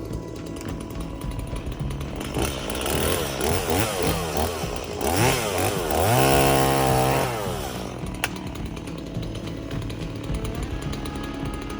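Chainsaw engine revving up and down several times, then held at high revs for about a second and a half before dropping back. Background music plays underneath.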